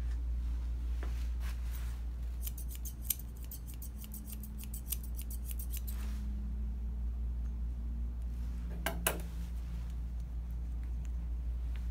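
Grooming shears snipping through a Bichon puppy's fur on the head, a quick run of about six cuts a second for a few seconds, then a couple more snips later. A low steady hum lies underneath.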